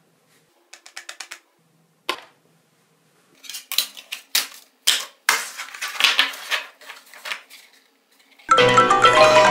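Thin handmade phone mock-ups of iron, glass, cardboard and wood being picked up and stacked on a tabletop: a quick run of light ticks, a sharp tap, then a clatter of knocks and scrapes as the slabs are gathered together. Marimba-like ringtone music starts about a second before the end.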